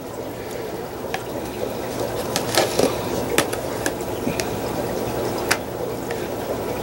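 A metal spoon scrapes and clicks against plastic food tubs as thick mashed potatoes are scooped and divided, giving a few sharp ticks. Under it runs a steady watery bubbling, the background water noise of aquarium tanks.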